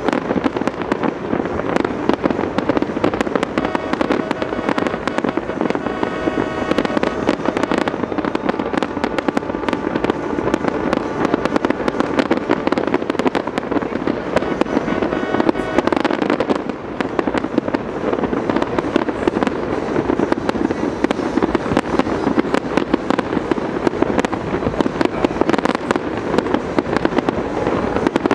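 Fireworks display: a continuous barrage of bangs and crackling as many shells burst at once.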